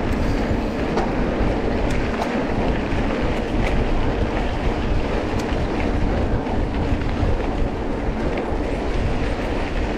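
Steady rumbling noise of a vehicle riding an off-road trail, with scattered faint clicks and knocks.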